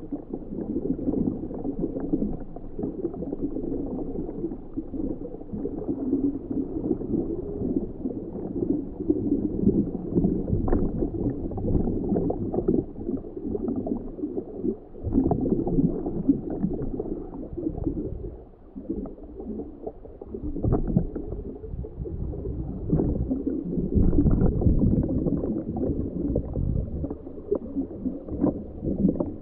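Muffled, irregular gurgling and rumbling of water heard through a homebuilt ROV's onboard camera inside its sealed housing underwater, with scattered small clicks and a few brief dips.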